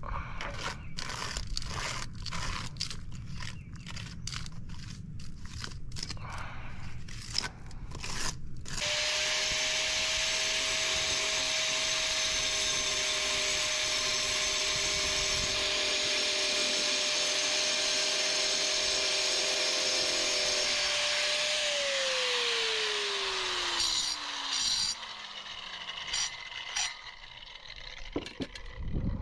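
An angle grinder starts about nine seconds in and runs with a steady whine under a harsh grinding hiss as it cuts a concrete paver. Shortly after twenty seconds it is switched off and its pitch falls as it spins down. Before it starts there is scraping and handling noise.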